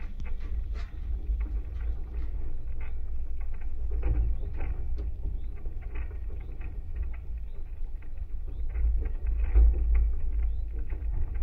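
Vibrations of a tall wooden maypole and its taut guy wires picked up by contact microphones: a steady low rumble with irregular ticks and taps.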